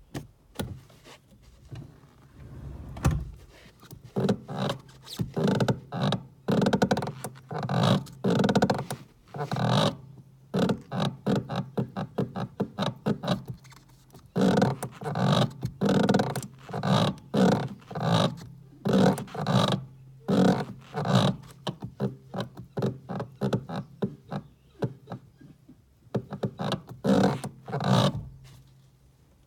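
Daihatsu Copen L880K clutch pedal squeaking and creaking as it is pushed down and let up again and again, in several runs of rapid squeaks. The pedal is heavy to press, and the noise comes with each stroke.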